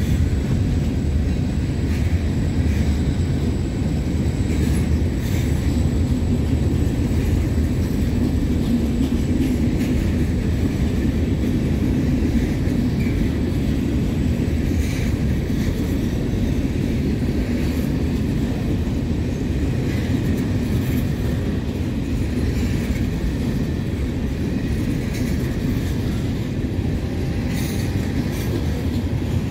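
Freight train of covered hoppers and tank cars rolling steadily past: a continuous rumble of steel wheels on rail with scattered faint clicks.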